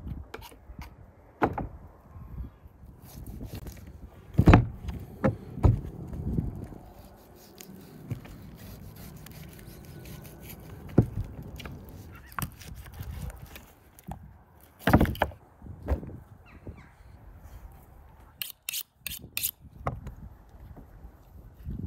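A knife cutting and scraping the hoof off a scalded beef foot on a wooden cutting board, with irregular knocks of the blade and foot against the board, a few of them loud.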